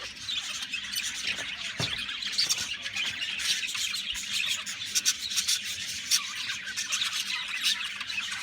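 A flock of cage birds squawking and chirping together: a dense, continuous chatter of high, overlapping calls.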